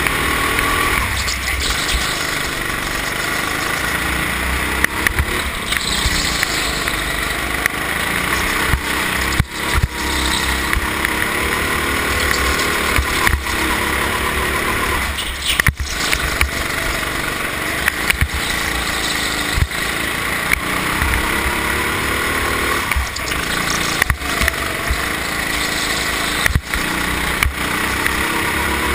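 Go-kart engine running hard on a lap, its pitch climbing on the straights and falling away into the corners, again and again. A few short sharp knocks come through now and then.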